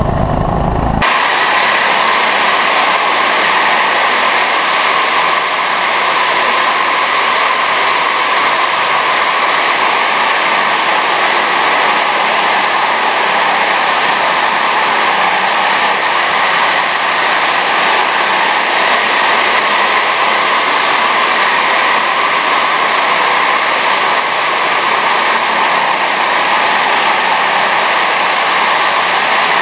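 Loud, steady hiss that never changes, with no engine note or other distinct sound in it.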